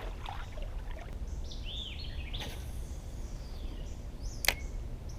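Birds chirping briefly over a steady low rumble of outdoor noise, with a single sharp click near the end.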